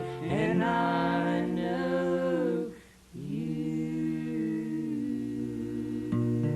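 Bluegrass vocal harmony singing the song's closing line slowly and unaccompanied: several voices holding one long chord, a brief break about three seconds in, then a second held chord. Plucked strings come back in near the end.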